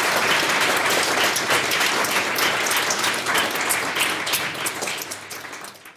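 Audience applauding, a dense, even clapping that thins out over the last second or so and then cuts off abruptly.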